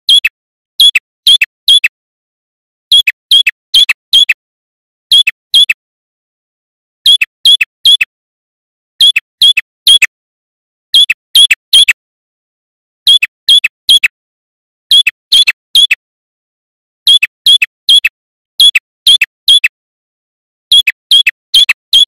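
Male ashy tailorbird (prenjak kepala merah) singing loud phrases of about three sharp, down-slurred notes each, a phrase roughly every two seconds.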